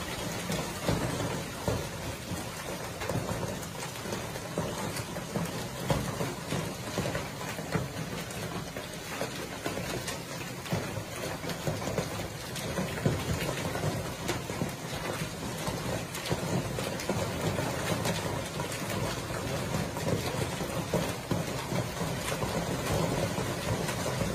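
Hailstorm with heavy rain: hailstones and rain pelting a tiled patio and lawn, a dense steady clatter of many small hits.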